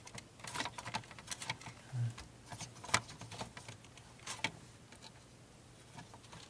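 Irregular small clicks and taps of plastic and metal parts being handled as a CD clock radio's circuit board and perforated metal speaker grille are pushed back into its case, with a sharper click about three seconds in.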